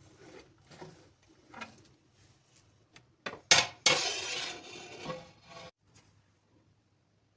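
Kitchenware being handled while cooking: light clinks and knocks, then a sharp clatter about three and a half seconds in, followed by about two seconds of hissing noise.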